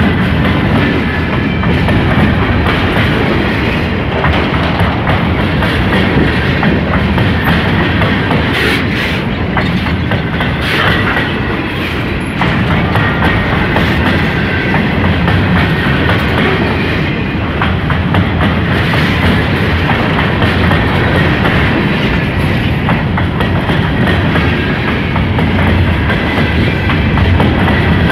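Freight cars of a passing Ferromex train rolling by close at hand: a steady, loud rumble of steel wheels on the rails with the clickety-clack of wheels passing over rail joints.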